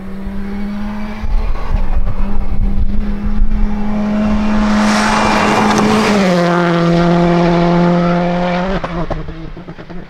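Citroën C3 Rally2 rally car's turbocharged four-cylinder engine held at high revs as the car comes up and passes close by. The engine note drops in pitch a little past halfway as it goes past.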